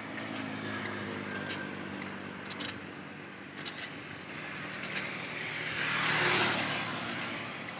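Road traffic: a steady engine hum, then a motor vehicle passes close by, its noise swelling to a peak about six seconds in and fading away.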